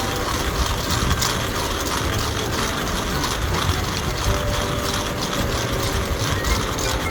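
Hand coffee grinder crunching through coffee beans as its crank is turned, a continuous gritty grinding.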